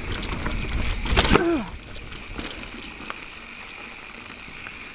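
Mountain bike rolling down a rough trail, heard as a low rumble of wind and tyre noise on a chest-mounted camera, with a short falling vocal cry about a second in. After that the rumble drops to a quieter, even noise.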